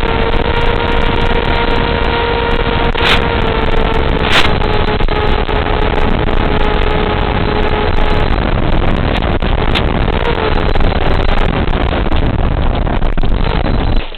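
In-flight noise of a light aircraft: a loud, steady rush with a steady whine over it that ends about eight seconds in. The noise cuts off suddenly at the end.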